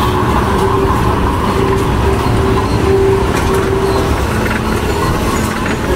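Amusement-park background noise: a steady low rumble with a faint pitched tone that comes and goes.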